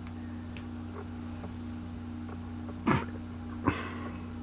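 Small clicks and taps of a plastic action figure and its parts being handled, with two short, sharper noises about three seconds in, over a steady low electrical hum.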